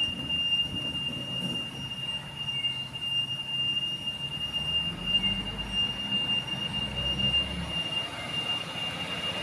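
Rear-loading garbage compactor truck running, with a steady high-pitched whine at one unchanging pitch that starts abruptly, over a low engine rumble and a few knocks.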